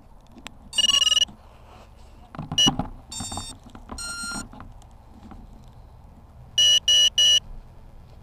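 Electronic beeps from an FPV quadcopter: one long beep, a few tones of different pitch, then three short, even beeps about a third of a second apart.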